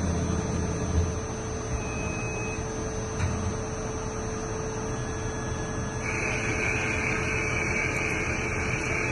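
Lathe running with a steady mechanical hum. A higher whine joins about six seconds in.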